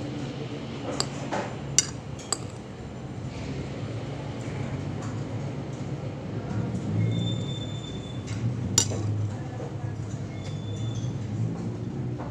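A metal spoon clinks against the plate while eating: a few sharp clinks in the first couple of seconds and another near nine seconds in, over a steady low hum.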